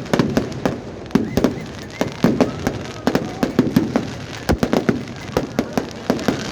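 Fireworks going off: a rapid, irregular run of sharp bangs, several a second.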